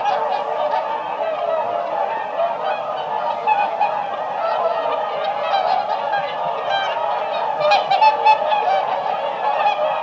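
A flock of whooper swans calling: many overlapping calls forming a dense, continuous chorus, with a few louder calls about eight seconds in.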